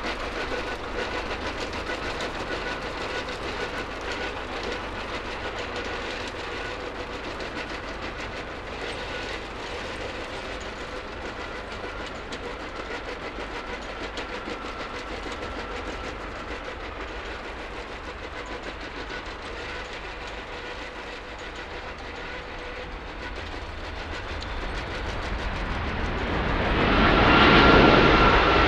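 Jet airliner engines running with a steady rush and whine, swelling to a loud peak near the end as the aircraft passes close.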